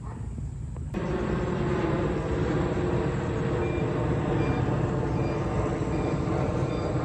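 Steady vehicle running noise, a low rumble with a hum, cutting in abruptly about a second in.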